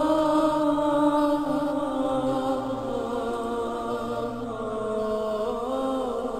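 Chanted vocal music: a single voice singing long held notes that slide slowly up and down, over a steady low drone.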